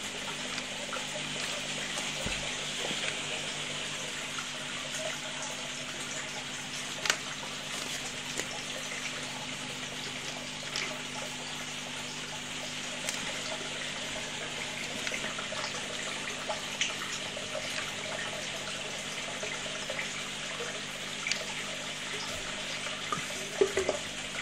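Aquarium filter running in a turtle tank: a steady splash and trickle of water over a low motor hum, with a few sharp clicks, the loudest near the end.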